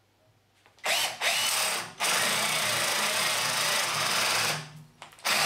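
Milwaukee 12-volt cordless drill/driver boring into a wooden block with a spade bit in second gear, starting with a rising whine about a second in, cutting out briefly near two seconds and again near the end before starting again. The drill keeps stopping because it is in the wrong, faster gear and is struggling under the load.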